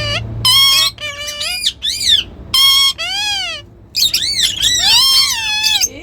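Indian ringneck parakeet calling: a rapid run of high, shrill squawks and chirps, many rising and falling in pitch, with a short pause partway through.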